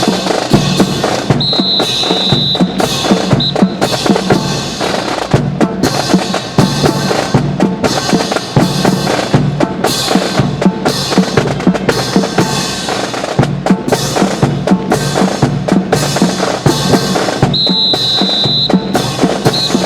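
Marching drums playing a steady cadence of snare and bass drum for a drill team. A high steady whistle blast sounds twice, about a second and a half in and again near the end.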